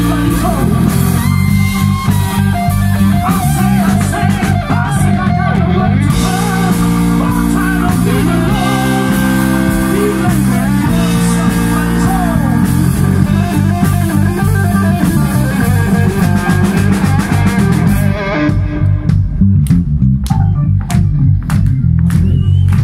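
Live rock band playing loud: electric guitar, bass guitar and drum kit. About eighteen seconds in the upper instruments drop away, leaving the bass and sharp drum hits.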